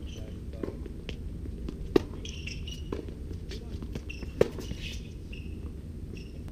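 Tennis balls struck by rackets during a rally on a hard court, two sharp racket hits about two and four and a half seconds in, with fainter hits and ball bounces between them.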